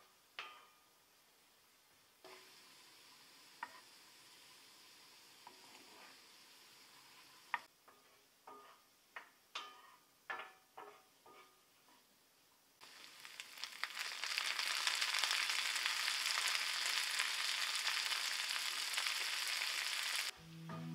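Frying pan on a gas burner with a faint sizzle, a wooden spatula knocking and scraping against the pan a dozen or so times. About thirteen seconds in, a much louder, steady sizzle sets in as spinach and mushrooms are stir-fried, and it stops just before the end.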